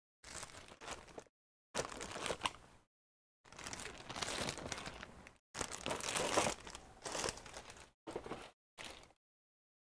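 Crinkling and rustling of plastic packaging being handled, in about six bursts with sudden cuts to dead silence between them, stopping about nine seconds in.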